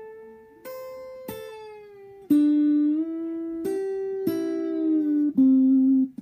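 Stratocaster electric guitar played fingerstyle: a slow phrase of about seven single plucked notes, each left to ring, several of them bent up in pitch, string bends joined to arpeggio notes.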